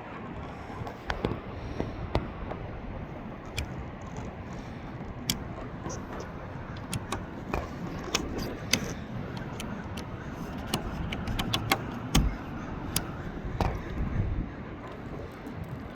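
Irregular metallic clicks and taps of a T25 Torx driver being fitted to and turned on the screws that hold a panoramic sunroof's glass, loosening them, over steady outdoor background hiss.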